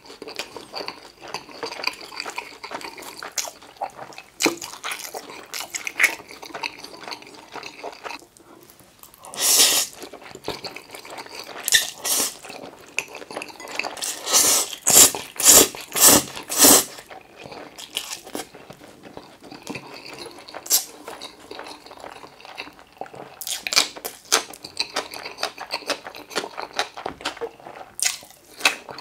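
Close-miked chewing and mouth sounds of a person eating spicy stir-fried seafood noodles, with a run of loud noodle slurps around the middle. Near the end comes a bite into crunchy pickled radish.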